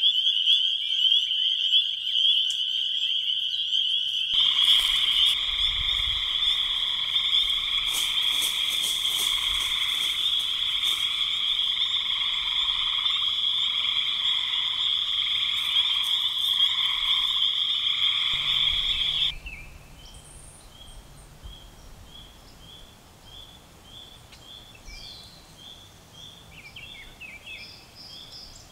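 A loud, dense chorus of frogs calling continuously at a pond, mostly high and shrill; after about four seconds, lower trilling voices join it. About two-thirds of the way through the chorus cuts off, leaving fainter, separate peeps about once a second, with a few bird chirps.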